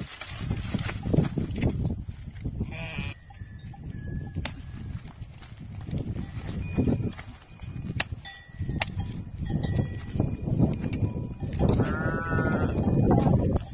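Goats and sheep bleating, with one long bleat near the end, over repeated knocks and thuds of a machete chopping a mandacaru cactus.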